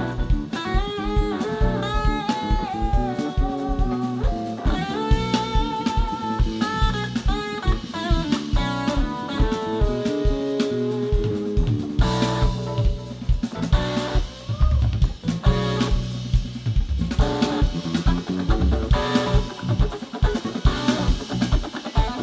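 Live rock band of electric guitar, bass, keyboards and drum kit playing an instrumental passage without vocals. A melodic lead line with wavering, bent notes rides over busy drumming in the first half, and the full band plays denser after that.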